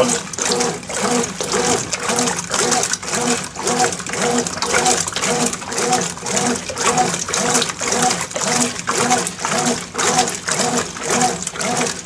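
Consul CWB09AB top-load washing machine agitating in an empty drum with only a low level of water: the agitator's back-and-forth strokes slosh and churn the water in a steady rhythm, a few strokes a second, on its economy wash cycle.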